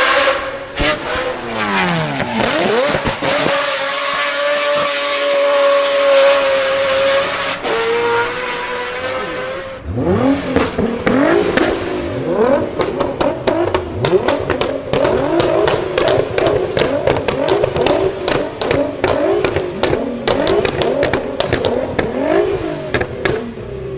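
Car engine revving. It holds high, steady revs at first. From about ten seconds in come quick rev blips with a rapid string of sharp exhaust pops and crackles.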